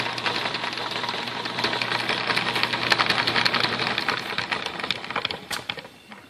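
Maytag washing-machine motor driving the belt and 8.5-inch drive pulley, with the three-bearing lantern gear on top spinning: a steady low hum under a fast, dense clatter. About four seconds in the hum stops, and the clatter slows and fades out as the pulley coasts down.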